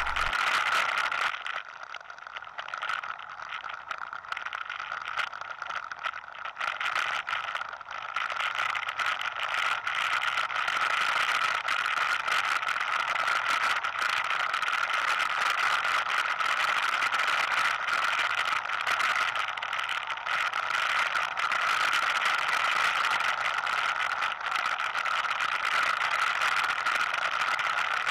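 ATV engine running steadily while riding a dirt trail. It is quieter for several seconds near the start, then louder and even from about eight seconds in.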